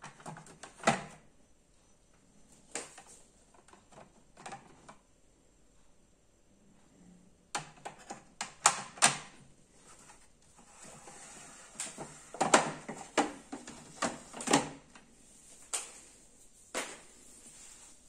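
Hard plastic clicks and knocks of a Jura Impressa A5 coffee machine's drip tray and grounds container being handled. They come in scattered clusters, with a faint scraping under the loudest run about two-thirds of the way through.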